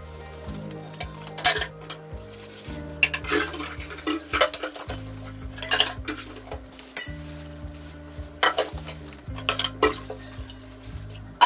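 Stainless steel plates and pots clanking and scraping as they are washed by hand at a kitchen sink, with a sharp clank every second or two.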